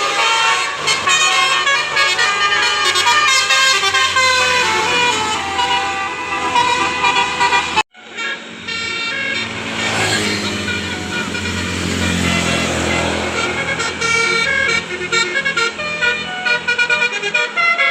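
Telolet Basuri multi-tone air horns with roof-mounted trumpets on Indonesian tour buses, playing a melody of quickly changing notes. About eight seconds in the sound breaks off abruptly and another bus's horns take up the tune, over engine and road rumble that swells and fades.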